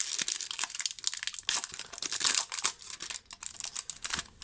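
Trading-card pack wrapper crinkling and rustling as it is handled, in a dense run of irregular crackles.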